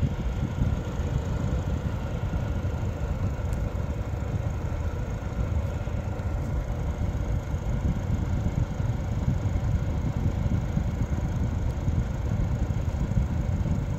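Old electric fan heater running after being switched on: a steady low whir from its fan motor with a few faint steady tones over it.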